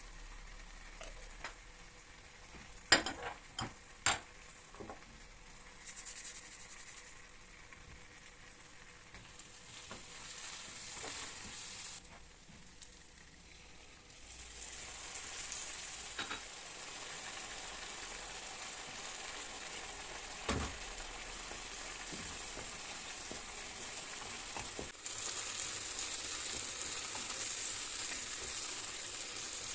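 Food frying in a pan with a steady sizzle, stirred now and then, with a few sharp knocks of a utensil against the pan near the start and one more in the middle. The sizzle grows louder about halfway through and again near the end.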